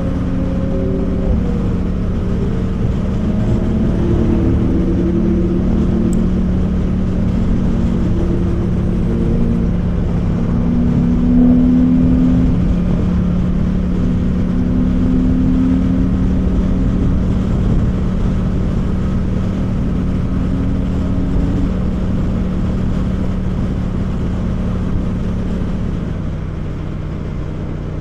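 Yamaha MT-07's parallel-twin engine running at a steady cruise under heavy wind rush on the camera. The engine note holds one steady pitch and drops slightly, together with the overall level, near the end. Shorter engine tones from other traffic rise and fall over it.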